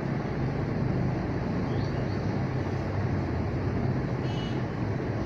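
Steady low rumble of background noise with no clear beginning or end, and a faint high tone briefly near the end.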